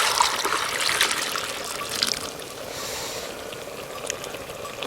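Water trickling and splashing, loudest for the first two seconds and then fainter.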